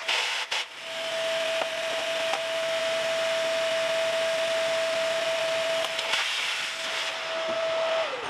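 Vacuum cleaner running with a steady hum and hiss as it sucks grit off a shower pan, then switched off near the end, its motor winding down in pitch.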